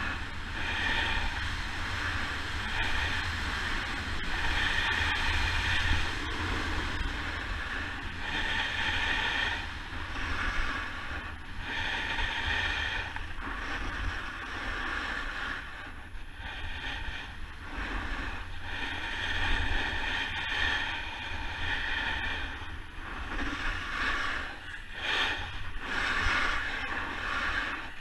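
Snowboard sliding fast on firm snow, its base and edges hissing and scraping in swells as it turns, over wind buffeting the camera microphone.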